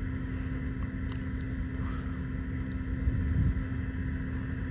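Steady low background rumble with a faint steady hum, swelling slightly a little past three seconds in.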